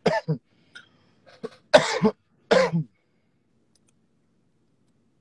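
A man coughing a few times in short, rough bursts, the two loudest close together about two seconds in.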